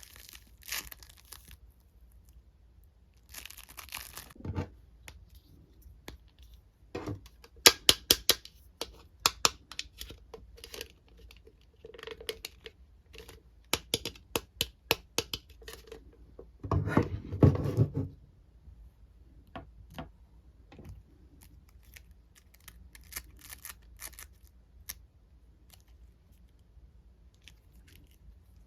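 Hands handling plastic toy parts and a foam squishy: scattered sharp plastic clicks and taps, with a longer stretch of rustling and crinkling about 17 seconds in.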